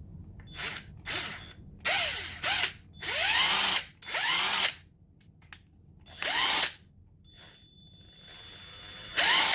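Craftsman V20 cordless impact wrench with a brushed motor, running free with no load in about seven short trigger pulls. Each pull spins the motor up and lets it wind down, and a faint rising whine comes just before the last pull.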